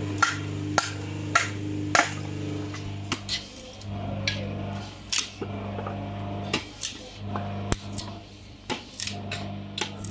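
Machete blade chopping into dry wooden planks to split them into kindling: a series of sharp wooden knocks, about one every half second at first, then more scattered.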